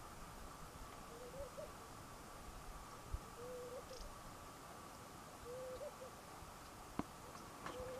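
A bird calling in the distance: a short, low hoot with a slight upturn at its end, repeated four times about two seconds apart. There is a faint steady high hum behind it and a single sharp click near the end.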